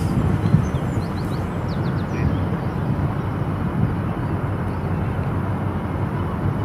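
Steady low outdoor rumble, with a few faint bird chirps in the first second or so.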